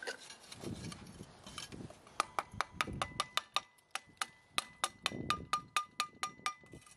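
Metal tongs and pliers tapping against a freshly cast bronze plaque as it is worked loose from its mold, a quick run of sharp clicks at about five a second, each with a short metallic ring. Before the taps there is soft scraping and crumbling of mold material.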